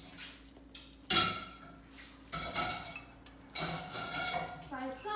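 Metal spoons clinking and scraping against ceramic bowls as children eat: several sharp, ringing clinks, the loudest about a second in.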